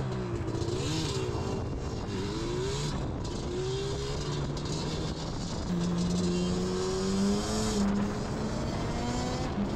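Yamaha Banshee 350's two-stroke parallel-twin engine pulling the quad along the road, its pitch climbing under throttle with two short drops about five and eight seconds in, over steady wind hiss.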